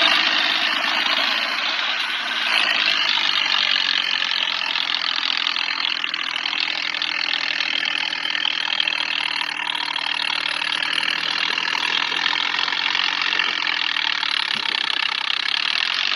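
Diesel tractor engine running steadily under heavy load, belching black smoke, as the tractor rears up and drives on its rear wheels in a wheelie.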